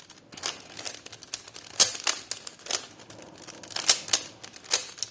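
A 3x3 Rubik's cube being turned quickly during a solve: a quick, irregular run of plastic clicks and clacks as the layers snap round, with a few louder snaps among them.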